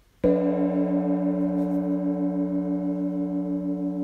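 A single strike on a resonant metal percussion instrument, setting up a low ringing tone with a fast, even waver that sustains and slowly fades.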